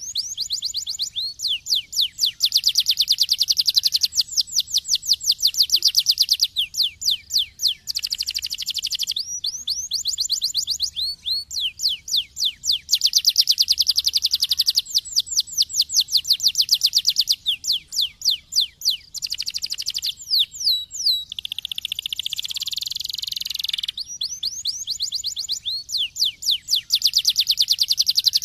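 Domestic canary singing continuously: long rapid rolls of repeated whistled notes, the phrases switching every second or two between fast trills and slower chops, with buzzy stretches in between.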